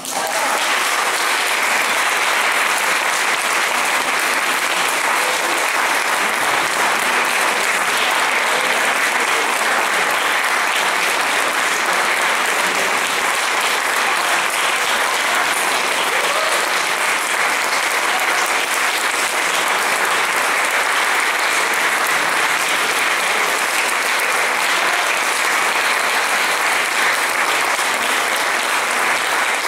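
Steady audience applause after the end of an orchestral performance.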